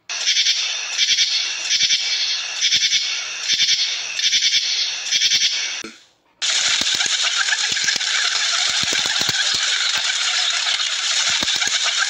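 Locusts rattling in a steady pulse, about two pulses a second. After a short break about six seconds in, a dense steady rustling with many small clicks takes over, from a flock of feral pigeons feeding on grass.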